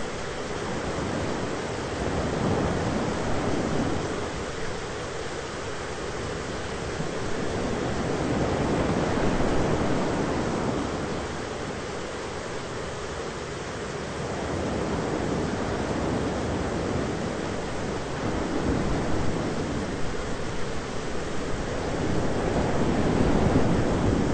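Thunderstorm ambience: a continuous rushing noise that swells and eases every several seconds, with no sharp thunderclap.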